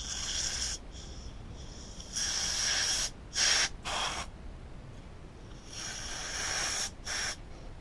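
Aerosol carburettor cleaner hissing through a thin straw nozzle into the jet holes of a generator's carburettor, in about six short spray bursts, each under a second long.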